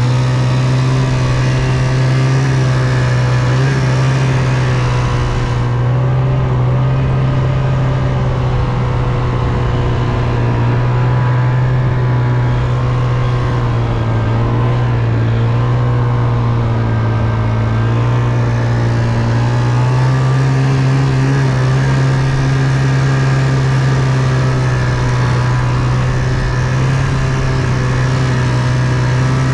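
Engine of a small vehicle running steadily under way, its pitch drifting gently up and down with the throttle.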